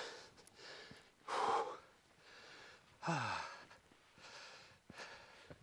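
A man breathing hard after a steep uphill climb, about one breath a second. There is a louder breath about a second and a half in, and a voiced sigh that falls in pitch about three seconds in.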